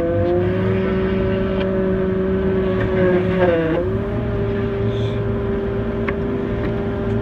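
Motorboat engine running steadily with a droning whine. Its pitch dips briefly about three and a half seconds in and then settles back.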